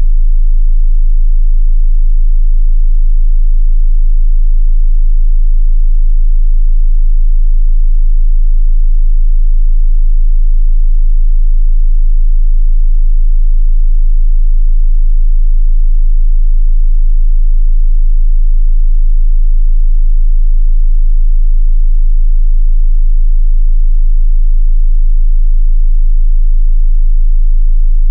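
A steady 27 Hz sine-wave test tone: a single, very deep, unchanging bass hum used for testing subwoofers.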